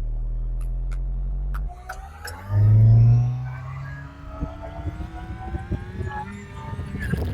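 Skid steer engine running steadily, then from about two seconds in its pitch climbs slowly as it revs up, with a loud low rumble around three seconds in and scattered knocks.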